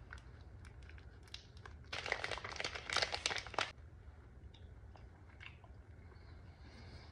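Crinkling of a foil candy pouch and chewing of chamoy-coated mango candy, with scattered crackles and a denser stretch of crackling about two seconds in that lasts a second and a half.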